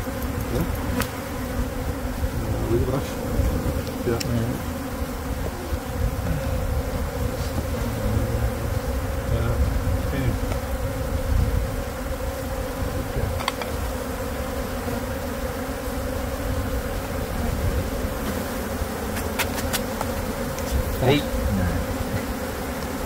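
Honeybee colony buzzing in a steady, dense hum around its opened nest in a brick wall cavity, during a cut-out. A few light clicks from handling are heard now and then.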